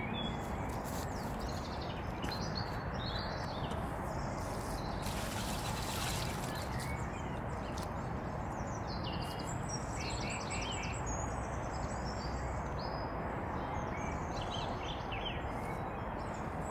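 Small birds chirping and twittering over a steady outdoor background hiss and rumble.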